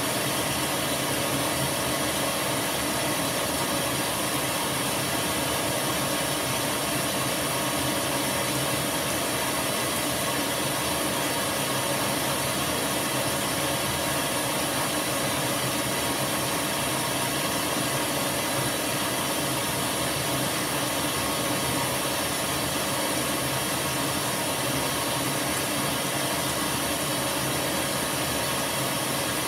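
Top-loading washing machine filling with water: a steady rush of water running into the tub, heard through the closed lid.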